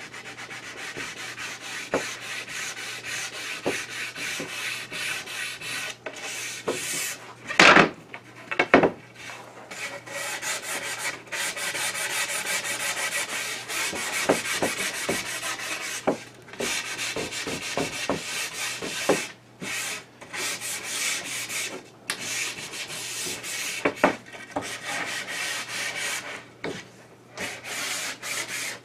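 Sandpaper rubbed by hand along the edge of a hardwood board to break the sharp arris, in runs of rasping strokes with short pauses. A pair of loud knocks comes about eight seconds in.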